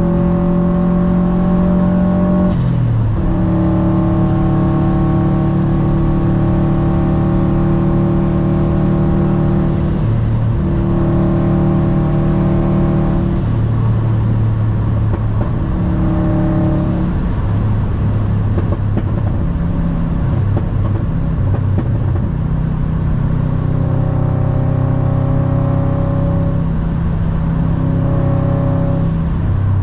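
Cabin sound of a Subaru WRX STI's turbocharged flat-four with an Invidia aftermarket exhaust, droning steadily while cruising at autobahn speed over tyre and road noise. The engine note shifts in pitch a few times, with a brief dip about two and a half seconds in.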